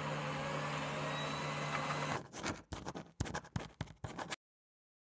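A steady hiss with a low hum, then from about two seconds in a quick run of short scratchy strokes of a felt-tip marker writing words, cutting off abruptly near the end.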